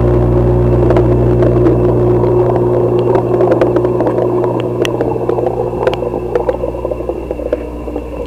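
Steady hum and water churn of aquarium pump equipment heard through a submerged camera. From about halfway, scattered sharp clicks and ticks come more often while the hum eases slightly.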